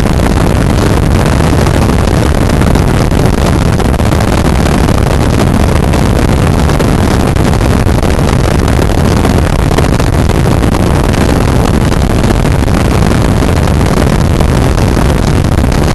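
Helicopter's engine and rotor running steadily at takeoff power in the climb, loud, with wind rushing over a microphone held at the open window.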